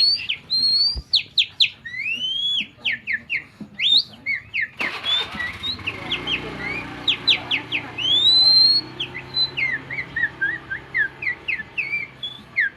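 A man whistling by mouth in imitation of a white-rumped shama's song: a fast run of clear whistled notes, mixing quick sharp sweeps with longer rising glides.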